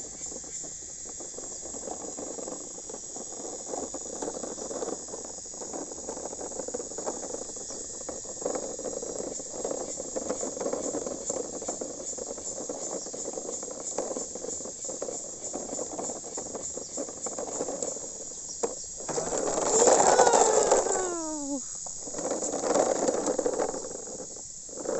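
Plastic toy dump truck's wheels rolling over rough, cracked pavement: a steady scraping rumble with many small clicks. Insects trill steadily in the background. Near the end, two louder passages of falling, voice-like calls break in.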